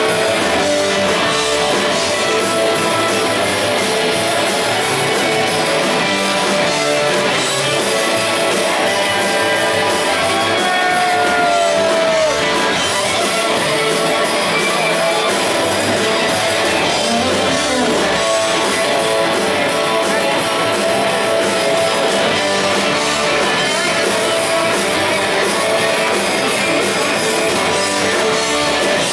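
Live rock band playing loudly, with electric guitars over the drums. A bent guitar note slides in pitch near the middle.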